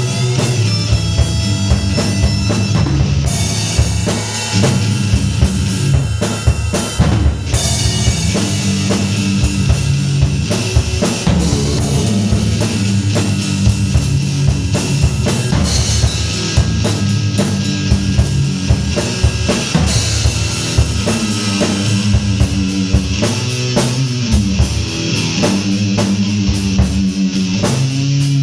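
Heavy metal instrumental passage: a drum kit with rapid bass-drum strokes under electric guitar and bass.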